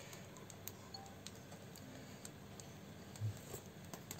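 Quiet room with a few faint, scattered ticks and one short, soft low thump a little over three seconds in.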